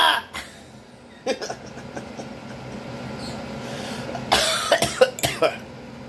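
A man's voice: the end of a loud wailing cry right at the start, then a short burst of coughing and throat-clearing about four seconds in, over a faint steady hum.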